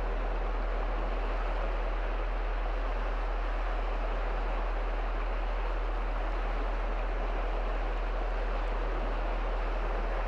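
Small waves breaking and washing onto a sandy shore, a steady, unbroken rushing, over a constant low hum.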